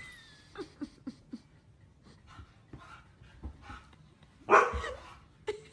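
A husky vocalizing: a few short, quiet yips about half a second in, then one loud bark about four and a half seconds in and a shorter one just before the end.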